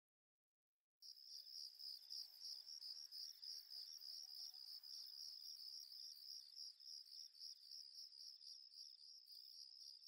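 Faint crickets chirping in a steady, rapidly pulsing high trill, starting about a second in after silence.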